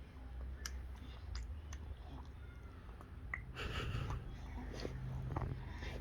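Baby's mouth sounds while being spoon-fed solid food for one of the first times: faint smacking and sucking clicks, with a short breathy sputter a little past halfway.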